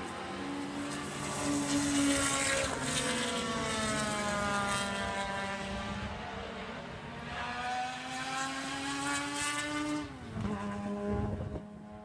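Vintage race car engines running on a circuit, their pitch gliding down and up as the cars lift off, accelerate and pass, with a sudden drop in pitch about ten seconds in.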